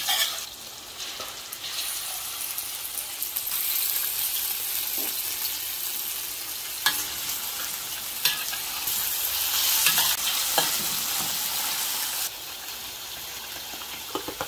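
Chopped onions and then sliced raw beef frying in hot oil in a steel wok, with a steady sizzle. A metal spatula stirs and scrapes, clicking against the pan now and then. The sizzle drops noticeably about twelve seconds in.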